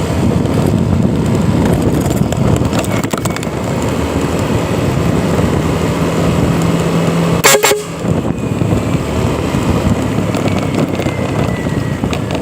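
Vehicle running on the road, with a low, steady horn blast of about two seconds a little past the middle, a fake Fuso-truck-style horn, cut off by a sharp click.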